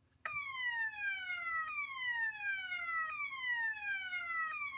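System Sensor fire alarm horn strobe sounding its swept-frequency tone. The pitch falls in repeated sweeps about a second and a half long, each jumping back up to start again, like a slow whoop in reverse. It starts abruptly just after the beginning.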